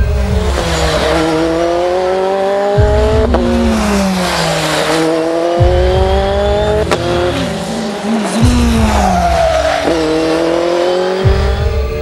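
Race car engine at high revs under hard acceleration, its pitch climbing steadily and then dropping at each upshift, about every three seconds.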